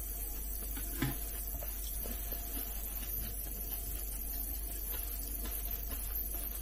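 Faint eating sounds: a metal spoon clinking a few times against a ceramic bowl of cereal flakes in milk, the clearest about a second in, over a steady hiss.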